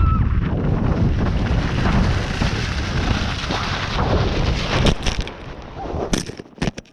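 Wind buffeting an action camera's microphone on a fast downhill run over snow, a dense low rumble with the scrape of snow under it. About five seconds in it breaks into a series of sharp knocks and thumps as the camera goes down into the snow.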